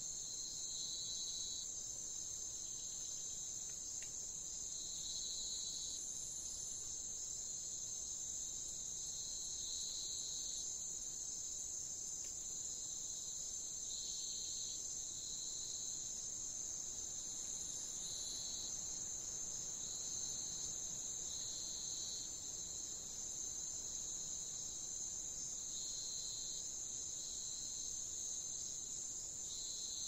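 Insect chorus: a steady, unbroken high trill, with a lower chirping phrase about a second long that repeats every few seconds.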